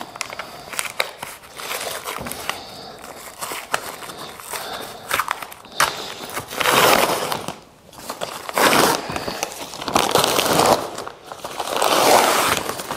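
Clear plastic film being peeled off a foam tool tray and scrunched up by hand, crinkling and crackling. It gets louder in the second half, coming in several bursts.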